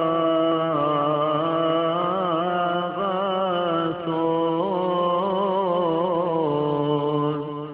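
Male voices chanting a Coptic hymn: one long melismatic phrase, the melody wavering in ornaments over a steady held low note, breaking off near the end.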